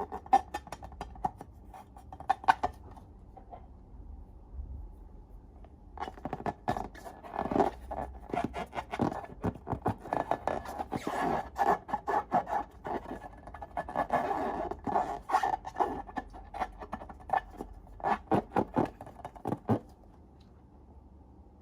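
Dense, rapid sticky clicks and scraping from slime being worked, in a short spell at the start and a longer, busier spell from about six seconds in until near the end.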